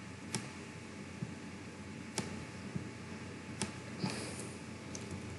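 A computer mouse clicking a few times, three sharp clicks about a second and a half to two seconds apart with a couple of fainter ticks between, over a faint steady hiss.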